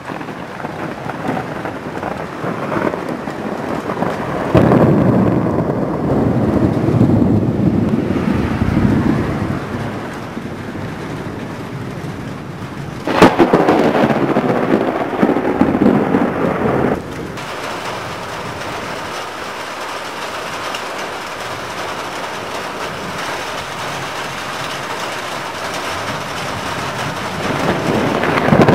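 Thunder from a severe lightning storm over steady rain. A rolling rumble starts suddenly about four seconds in and dies away by about ten seconds. About thirteen seconds in, a sharp crack is followed by loud rumbling that cuts off suddenly a few seconds later, and more rumbling builds near the end.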